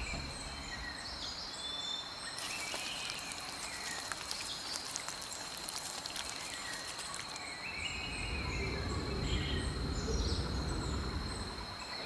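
Rainforest ambience: a steady high insect drone with short, repeated calls of birds or insects over it. A band of hiss comes in between about two and seven seconds in, and a low rumble follows for a few seconds.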